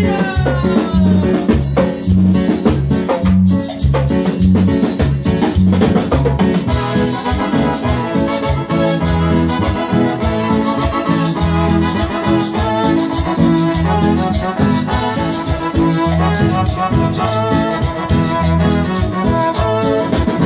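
A band playing Latin dance music, with keyboard and brass over a steady, repeating bass beat.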